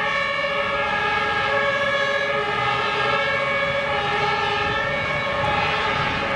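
German fire engine's two-tone compressed-air horn (Tatütata) sounding continuously, switching back and forth between a high and a low tone about once a second.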